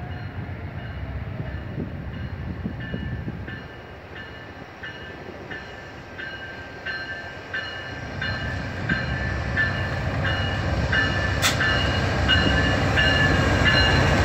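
Approaching Amtrak passenger train led by diesel locomotive No. 4: a low rumble that grows steadily louder over the second half. A bell rings steadily about twice a second, and there is one sharp click near the end.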